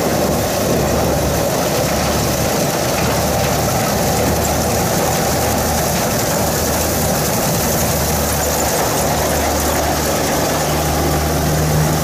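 Kubota Pro688Q combine harvester's diesel engine running steadily while it cuts and threshes rice, with the clatter of the cutting and threshing gear; its engine note grows stronger in the second half as the machine comes close.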